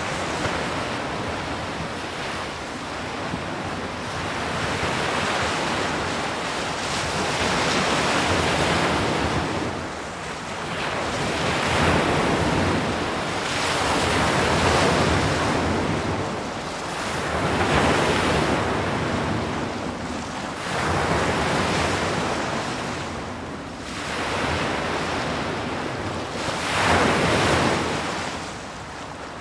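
Sea waves breaking on a shore, the surf swelling and falling back every few seconds with a steady hiss between breakers.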